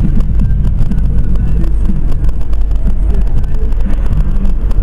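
Car driving, heard from inside the cabin: a steady low engine and road rumble.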